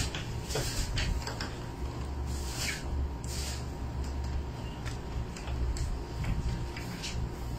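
Someone rummaging in a kitchen: scattered small clicks and knocks and a few short rustles, over a steady low rumble.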